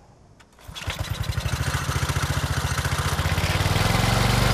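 Small gas engine of a flexible-shaft post hole auger starting up less than a second in and running with an even, rapid firing rhythm, growing slightly louder as it settles.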